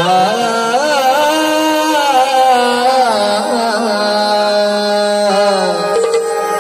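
Music: a slow melodic line of long held notes that glide and waver in pitch, without clear drum beats, in the opening of a Marathi Bhim geet.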